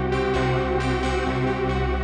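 Background music: a sustained synthesizer drone with several sharp accented hits.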